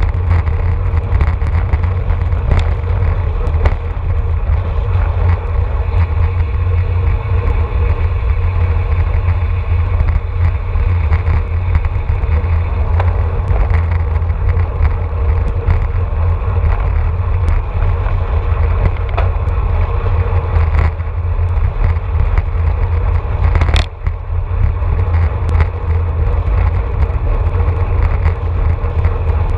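Wind buffeting a handlebar-mounted camera's microphone on a road bike moving at about 30 mph, a steady low rumble over the hiss of tyres on asphalt, with occasional sharp clicks from the bike.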